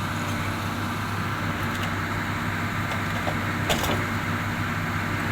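Komatsu excavator's diesel engine running steadily, with a single sharp clank about three and a half seconds in.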